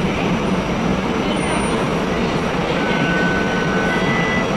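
Streetcar running in the underground station loop: a steady rumble, with a brief faint high squeal about three seconds in.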